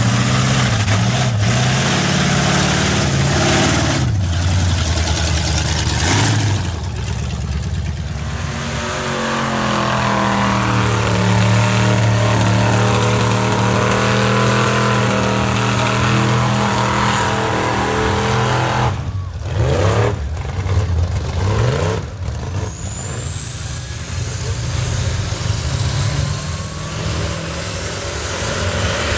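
Lifted mud-bog trucks' engines running hard at high revs as they plough through deep mud, one after another, with a long held high-rev note in the middle while the tyres spin. Near the end a high whine rises steadily in pitch over the engine of a diesel pickup.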